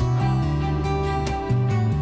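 Background music: gentle instrumental with plucked guitar notes over a bass line and a steady beat.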